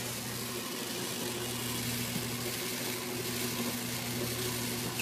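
CatGenie self-washing litter box running its cleaning cycle: a steady motor hum as the bowl turns under the rake arm, which combs through the washable granules.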